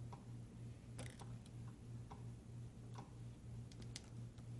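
Faint, scattered clicks and taps of small plastic tablet parts being handled and fitted by hand, over a low steady hum.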